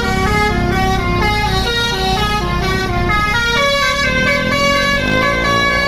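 A tour bus's telolet musical horn, a multi-tone air horn of the basuri type, playing a rapid tune of short stepped notes with several horn tones sounding at once. A pitch glide rises near the end, over a steady low rumble.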